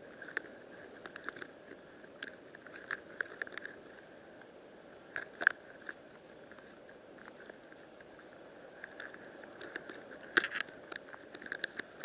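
Underwater sea ambience heard through a submerged camera: a steady hiss with irregular crackling clicks that come in clusters, the loudest about halfway through and again near the end.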